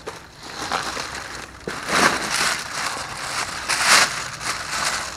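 Plastic trash bag rustling and crinkling as it is grabbed and pulled about, loudest in two surges, about two seconds in and again near four seconds.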